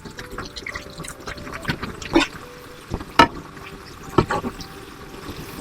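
Spoon stirring soupy seblak in a bowl: liquid sloshing, with three sharp clinks about a second apart.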